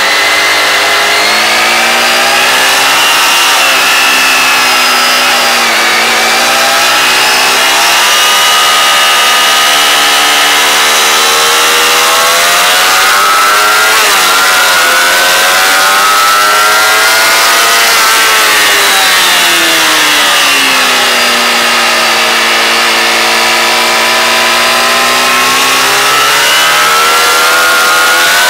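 Onboard recording of a high-revving sport motorcycle engine under way, its pitch climbing and falling several times as the rider accelerates and backs off, with a steady hiss of wind rush under it.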